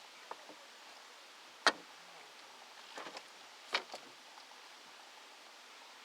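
A few sharp clicks or taps over faint background hiss. The loudest comes about a second and a half in, and another strong one near four seconds.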